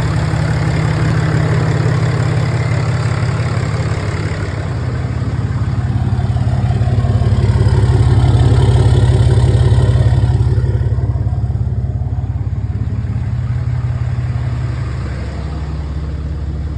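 6.7 Cummins inline-six turbodiesel idling steadily, running after the front timing case gasket replacement and reassembly. The exhaust note grows louder midway, when heard at the tailpipe, then eases off.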